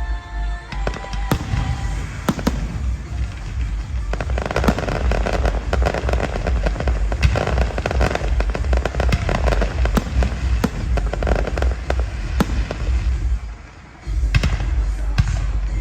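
Fireworks going off: a rapid run of sharp bangs and dense crackling, dipping briefly near the end before the bangs resume.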